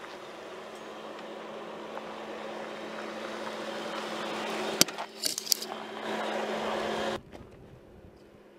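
Jeep Wrangler Rubicon's 3.6-litre V6 engine running at low speed as the Jeep crawls toward the camera, getting steadily louder. A sharp click comes about five seconds in, then a few brief high squeaks. The engine sound cuts off suddenly after about seven seconds, leaving a faint background.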